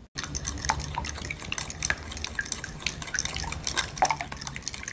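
An egg mixture being beaten with a fork in a ceramic bowl: quick, irregular clicks and taps of the fork against the bowl as the liquid is stirred round.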